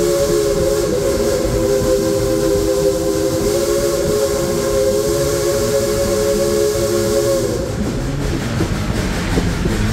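Steam locomotive's chime whistle held in one long blast, several notes sounding together, sagging slightly in pitch as it cuts off about seven and a half seconds in. After it, the steady rumble and rattle of the train's open passenger car running along the track.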